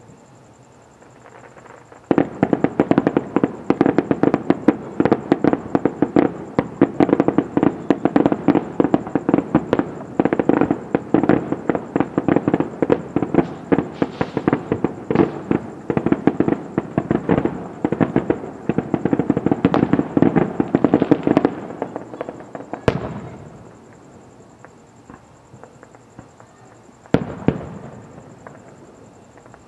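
Aerial fireworks exploding in a dense rapid barrage of crackling bangs for about twenty seconds, then a few single booms near the end.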